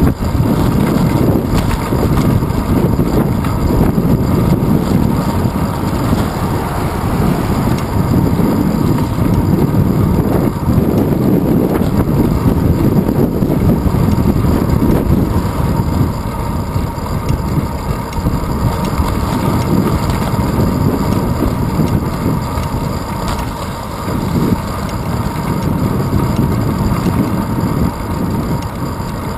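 Steady wind rush and road rumble from a bicycle riding along pavement, picked up by a handlebar-mounted GoPro Hero 2. The noise is loud and low throughout.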